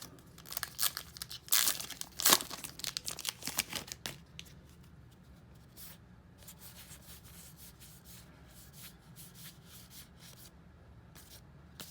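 A trading card pack's wrapper being torn open and crinkled, loud over the first four seconds, then softer rustling of the wrapper and cards.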